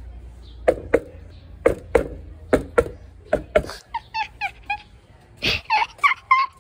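A string of sharp clicks, then from about four seconds in a quick run of short chirping calls from an animal, each call dipping in pitch.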